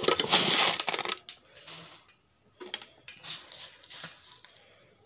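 Dry red lentils rattling in a steel bowl as they are poured and worked by hand. A loud rattling hiss comes in the first second, then softer rattles and a few clicks.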